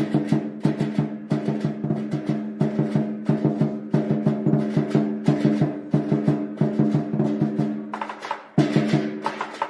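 Chinese lion dance percussion: a drum beaten in a fast, steady rhythm of several strikes a second, ringing over a held low tone. The playing drops off briefly about eight seconds in, then picks up again.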